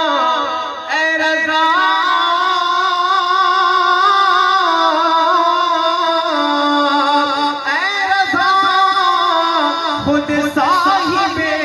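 A man singing a naat into a PA microphone, drawing out long, wavering held notes that slide from pitch to pitch without clear words.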